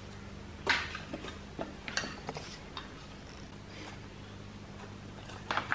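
Scattered small plastic clicks and knocks as a motorcycle turn-signal indicator and its plastic retainer are pressed into place and its wiring handled, over a steady low hum.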